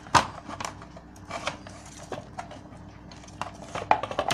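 Hands working the wires and spade terminal connectors of a UPS's sealed lead-acid battery inside its plastic case: a sharp click just after the start, then scattered light clicks, taps and rustling.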